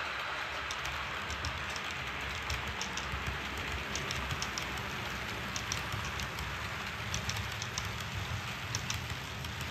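HO-scale model train running on the layout's track: a steady low rumble with scattered light clicks.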